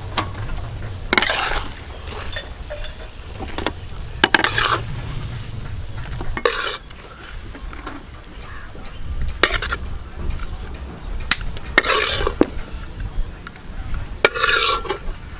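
Metal spoon scooping fried duck eggs out of a steel wok into a stainless steel tray: about six short scrapes of metal on metal a couple of seconds apart, with sharp clinks in between, over a steady low rumble.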